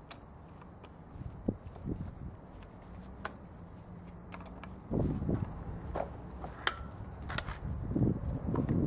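Scattered light metallic clicks and taps as an Allen key works a bolt out of a folding bicycle's stem hardware, then louder irregular handling and rustling noises from about five seconds in as the parts are lifted and moved.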